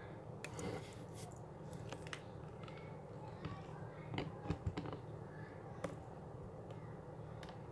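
Steady low hum with scattered small clicks and taps, a cluster of them about four to five seconds in.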